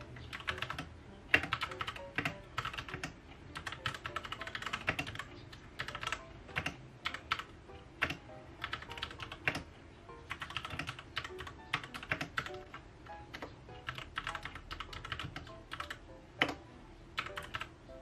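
Typing on a Royal Kludge RK61 60% mechanical keyboard: quick runs of key clicks broken by short pauses.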